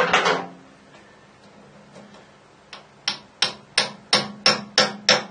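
Steel hammer blows on the taper pin that locates the lathe's gap bed. One loud blow comes at the start, then after a pause a run of about eight sharp taps, roughly three a second, driving the pin home with a punch.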